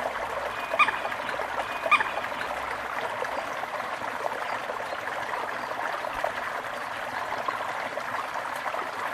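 Steady trickling, running water of a stream, with two short, sharp chirps about a second apart near the start.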